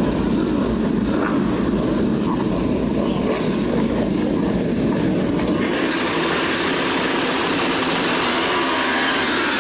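Racing superbike engines running on the starting grid. About six seconds in, the sound turns brighter and harsher as the engines rev harder.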